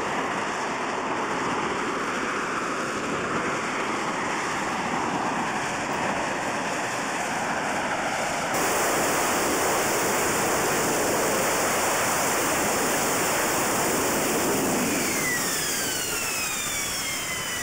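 AV-8B Harrier jump jet's Pegasus turbofan running, a steady hiss of jet noise while the aircraft hovers, growing louder and brighter about halfway through. Near the end several whining tones fall in pitch.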